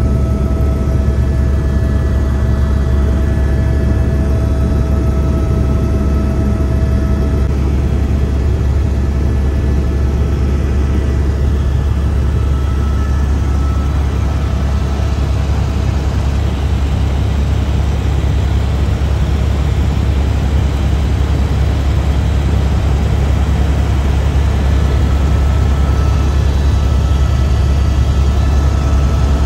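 Helicopter cabin noise in flight: a loud, steady deep drone from the rotor and engine, with a few faint steady whining tones over it.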